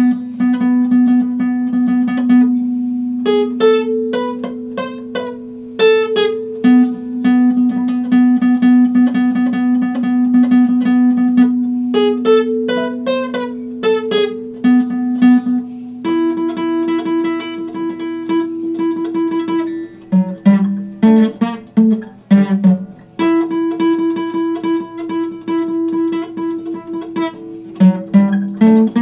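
Epiphone acoustic guitar being played: a low note rings on under picked higher notes and quick runs. About halfway through the notes change, and clusters of strums come near the end.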